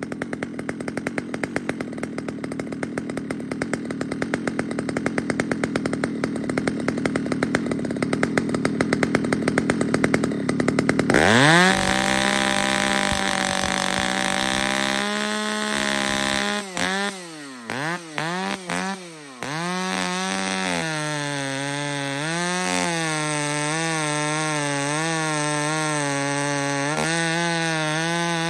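Husqvarna chainsaw idling for about ten seconds, then suddenly revved to full throttle. It drops off and picks up a few times, then runs steadily at high revs with a slightly wavering pitch as it cuts into a large stump.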